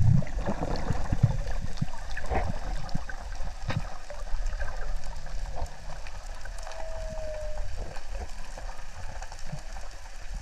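Underwater sound picked up by a camera on a freedive: muffled water rushing and gurgling against the housing, with scattered small clicks and a low thump right at the start.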